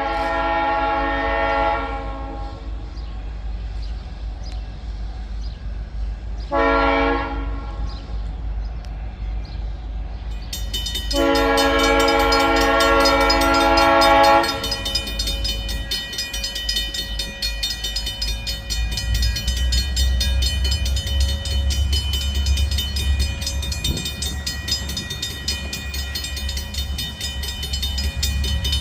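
Diesel freight locomotive horn sounding a long blast, a short one, then a long one, the tail of a grade-crossing signal, over the steady rumble of the diesel engines. From about a third of the way in a high-pitched ringing joins, and the engine rumble gets louder as the locomotives come past.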